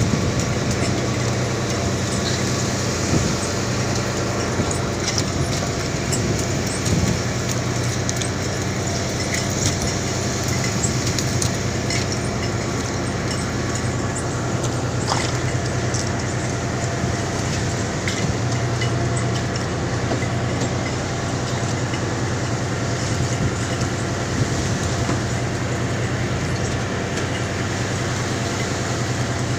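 Automatic squid-jigging machines and ship machinery running with a steady drone and hum, with scattered light clicks and knocks.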